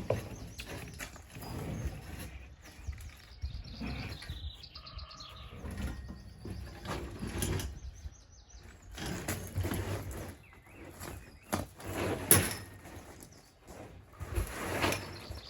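Irregular knocks, bumps and scrapes from timber and board being handled and fixed, the sharpest knock about twelve seconds in, with birds chirping now and then.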